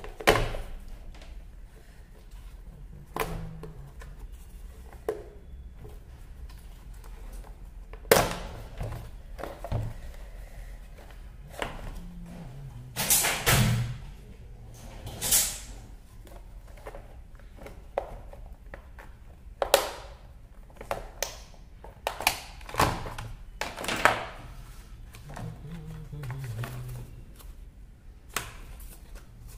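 Scattered clicks, knocks and clacks of hard plastic as the motor and pump housing of a Kärcher K2 pressure washer is handled and unclipped on a metal workbench.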